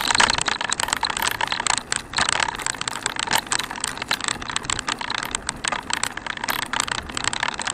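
Recumbent handcycle rolling over rough, patched asphalt, rattling with dense, irregular clicks, with a brief dip about two seconds in.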